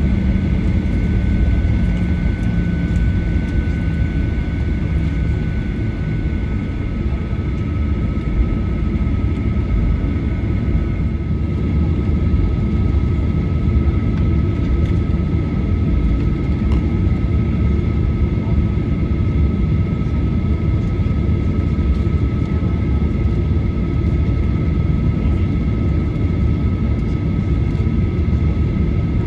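Steady cabin noise inside a Boeing 737-900ER: a continuous low rumble with the thin whine of its CFM56 jet engines, which dips slightly in pitch about eleven seconds in.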